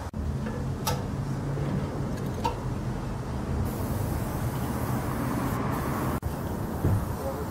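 A steady low engine hum, like a vehicle running nearby. About halfway through, the hiss of an aerosol spray-paint can being sprayed onto a wall joins it.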